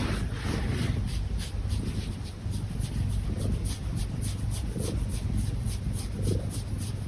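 A cat being given a neck massage: hands rubbing its fur, with faint high-pitched snoring on its breaths about every second and a half, growing more distinct toward the end.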